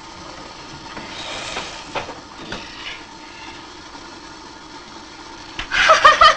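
Low film-soundtrack hiss with a few soft knocks as a metal baking tin is handled. About half a second before the end, loud, high-pitched giggling breaks out in quick repeated bursts.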